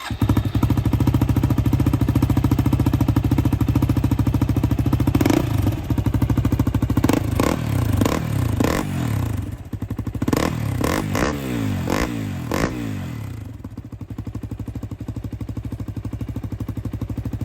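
Yamaha WR250R's single-cylinder engine running through a GPR slip-on exhaust with the dB killer fitted. It idles steadily, is given a run of quick throttle blips from about five to thirteen seconds in, then settles back to idle.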